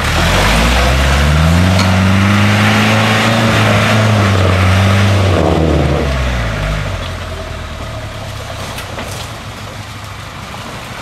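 Land Rover engine revved hard as it climbs a steep muddy bank off-road: the pitch rises over the first two seconds and holds loud for a few seconds. About six seconds in it falls away and the engine settles to quieter running.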